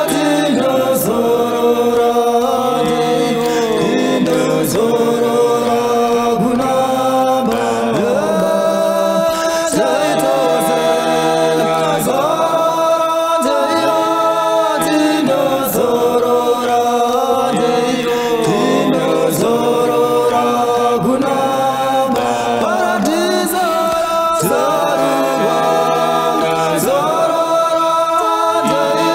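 Song sung by a group of voices in harmony, chant-like, in short repeated phrases.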